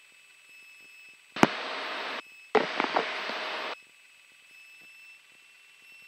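Two short bursts of hiss over the aircraft headset intercom, each about a second long, switching on and off abruptly as a microphone opens on breath or wind noise; the first starts with a sharp click. Under them is a faint steady electrical whine.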